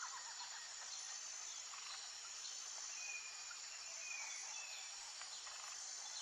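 Faint outdoor nature ambience: a steady, high-pitched insect trill with a few short bird chirps about three seconds in.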